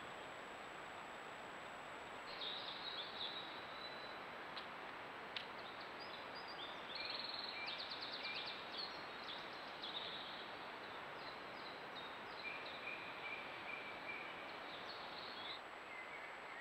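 Small songbirds singing: a run of short high chirps and a fast trill starting about two seconds in and going on until near the end, over a steady hiss. No crane calls are heard.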